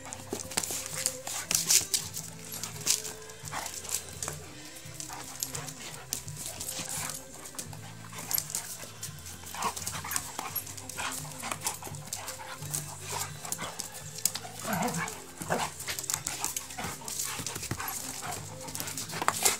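A Dogo Argentino and a Doberman tussling: dog sounds with many short sharp clicks and scuffs, and a brief cry that glides up and down about fifteen seconds in. Background music plays underneath.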